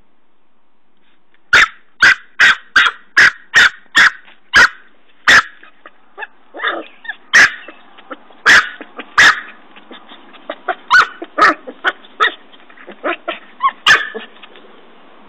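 Norfolk Terrier puppy barking in short, high yaps, quickly at first at about two a second, then more spread out. Its paws scratch at the soil faintly between the barks as it digs.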